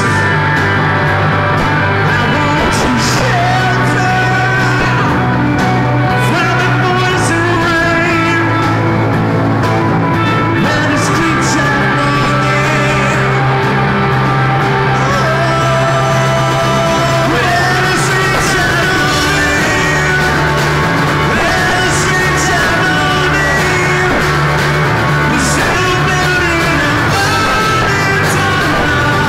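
Live rock band playing loudly: electric guitars and a drum kit, with a voice singing over them.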